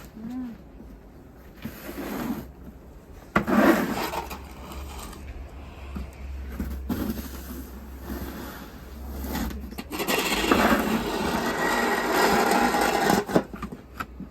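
Snow shovel scraping and pushing through deep fresh snow in repeated strokes, with a long scrape near the end.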